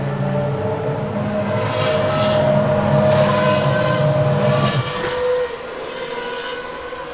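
Cosworth 3.0 L V10 of the Toro Rosso STR1 Formula 1 car running at high revs. It gets louder to a peak, then drops away about five seconds in.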